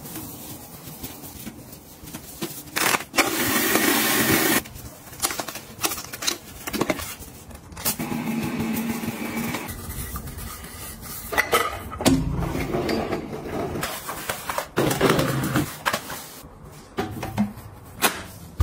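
Toilet cleaning: a toilet brush scrubbing the foamy bowl, and a small flat mop scraping over the tile floor, in uneven strokes. A loud hiss runs for about a second and a half, three seconds in.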